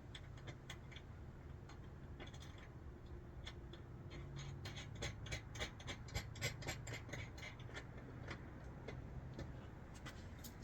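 Light, irregular clicks and taps of small metal hardware being handled, bolts, nuts and a mounting bracket, with a steady low hum underneath. The clicks come thickest about halfway through.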